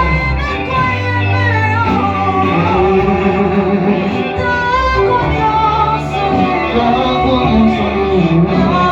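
Worship song: voices singing a wavering melody over instrumental backing with sustained bass notes that change every second or two.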